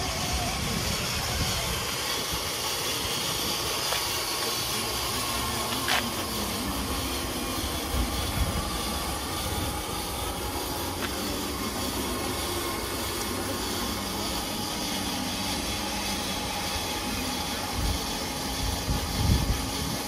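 Radio-controlled model excavator working: a faint motor whine that rises and falls in pitch as it moves, over a steady hiss, with a couple of sharp clicks and a few low thumps near the end.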